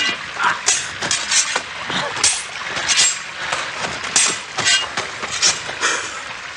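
Sabres clashing in a fast duel: about a dozen sharp metal-on-metal strikes, roughly two a second, each with a short high ring.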